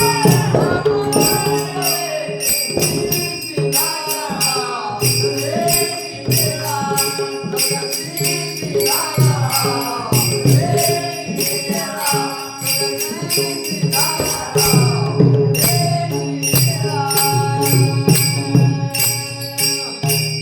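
An elderly woman singing a Marathi abhang, a devotional song, in long melodic phrases, accompanied by jingling metallic percussion that keeps a steady beat.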